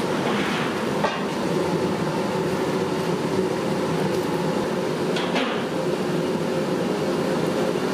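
A steady rushing kitchen noise with a metal utensil knocking against a large cooking pot, sharply about a second in and again around five seconds in, as the batch is stirred.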